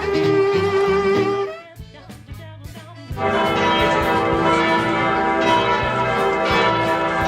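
Instrumental music ends about a second and a half in. After a short lull, a peal of church bells starts about three seconds in and rings on, many strokes overlapping.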